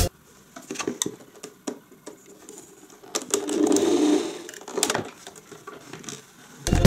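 Plastic clicks and knocks from a Bosch MUM 4419 stand mixer being handled as its arm is swivelled up and the bowl and beater worked, with a rubbing, grinding sound lasting about a second a little past three seconds in.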